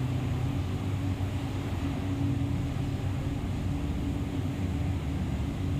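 A steady low machine hum that holds the same level throughout.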